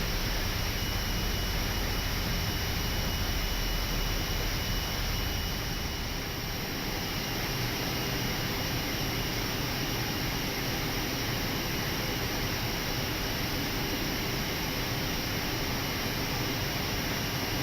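Cockpit noise of an Airbus A319 slowing on the runway after landing: a steady hiss of engines and air with a low rumble that eases off about six seconds in.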